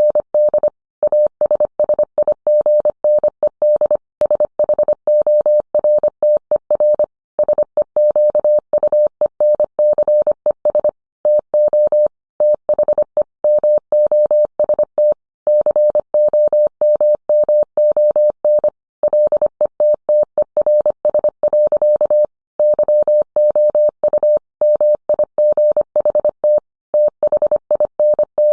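Morse code sent as a single steady mid-pitched tone, keyed on and off in a fast stream of dits and dahs with short gaps between characters and words.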